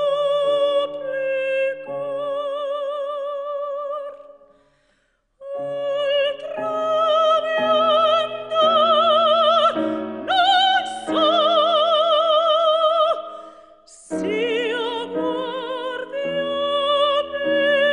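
Mezzo-soprano singing an Italian Baroque operatic lament with wide vibrato, accompanied by piano. The music falls silent for about a second some four seconds in, then voice and piano come back in.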